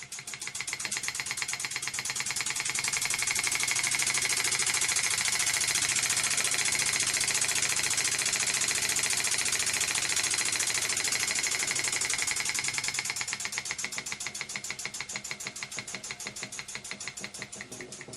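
Small electrically heated model steam engine running, its exhaust beats a fast, even stream of chuffs with a steam hiss. It speeds up and grows louder over the first few seconds, runs steadily, then slows and quietens over the last few seconds as the regulator controls its speed.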